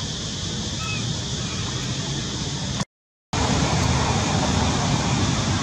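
Steady outdoor background noise with no clear source, broken by a half-second dropout to silence about three seconds in at a cut, then resuming slightly louder. A faint short chirp sounds about a second in.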